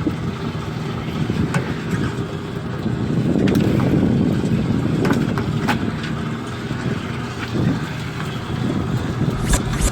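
A fishing boat's engine and deck machinery running steadily, with a few scattered knocks over the rumble.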